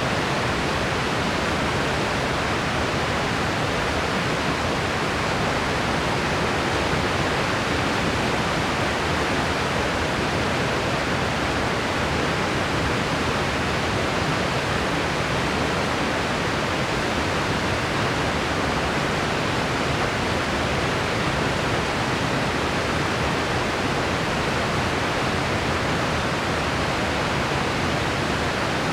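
A white-noise track: an even, unchanging hiss with no breaks or changes.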